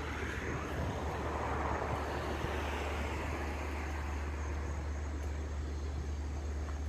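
A distant passing vehicle: a broad engine-and-road noise swells about a second or two in and fades away, over a steady low rumble.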